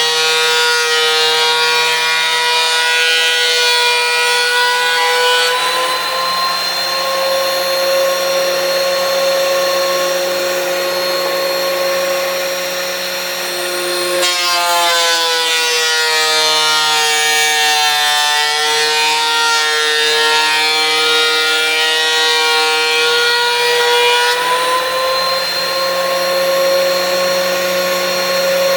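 DeWalt thickness planer running with a loud motor whine, twice dropping in pitch with a rough cutting noise as the cutterhead takes a pass through a hard old pine stair tread, then rising back to its steady free-running pitch once the board has gone through. The first pass ends about five seconds in; the second starts about halfway and ends a few seconds before the end.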